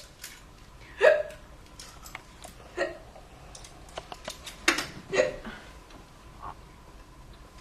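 A person hiccupping four times, short sharp gulps a second or two apart, the first one the loudest. Faint small clicks come between the hiccups.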